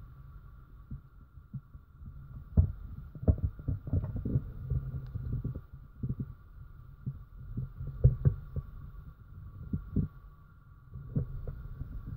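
Irregular dull thumps and a few sharper knocks over a faint steady high hum.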